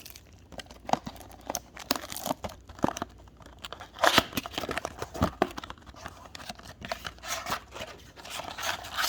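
Retail trading-card blaster box being opened: packaging tears and crinkles in irregular bursts, with crackles and rustles, the loudest about four seconds in.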